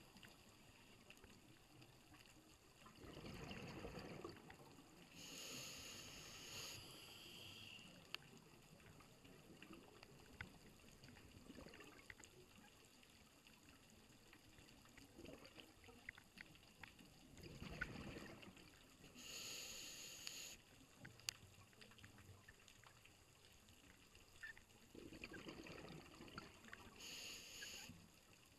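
Scuba diver breathing through a regulator, heard underwater: three faint breaths, each a low rush of exhaled bubbles followed by the hiss of the next inhalation. Scattered faint clicks fall between the breaths.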